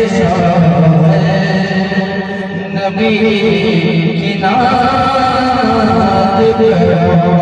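A man's solo voice singing a naat, Urdu devotional poetry in praise of the Prophet, amplified through a microphone. He sings in long held, wavering notes with melodic turns.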